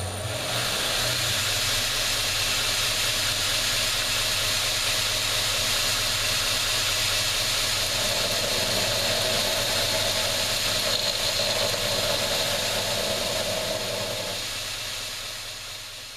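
Belt grinder switched on and running, its motor humming steadily under the hiss of the abrasive belt as a knife blade is ground against it. The sound builds quickly at the start and fades out near the end.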